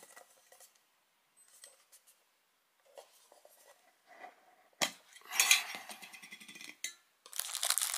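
Lid of a metal watch tin being worked off: faint ticks, then a sharp metallic click about five seconds in, scraping as the lid comes away, and another click. Near the end comes dense crinkling of plastic wrapping.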